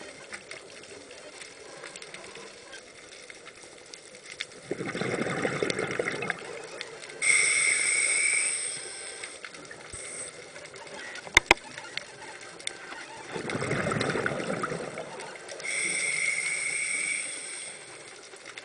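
A scuba diver breathing through a regulator underwater, twice. Each breath is an exhalation, a rush of bubbles, followed by an inhalation, a hiss with a faint whistle in it. A quick pair of sharp clicks comes about halfway through.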